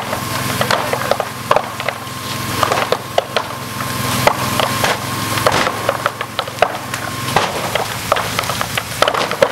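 Large building fire crackling and snapping with irregular sharp pops, over a steady low hum from a portable fire pump engine and the hiss of water jets. A thin steady tone runs underneath and stops about two seconds before the end.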